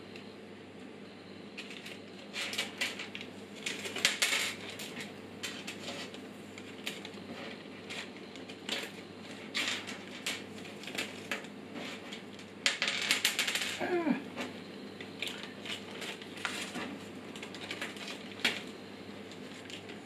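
Small metal power-supply screws clicking and clinking as they are handled, with the clear plastic parts bag rustling in short bursts, scattered irregularly.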